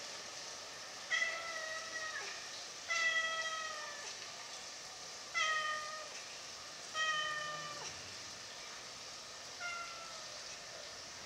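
Young stray tabby cat meowing five times, about every two seconds, each meow a drawn-out call that slides slightly down in pitch.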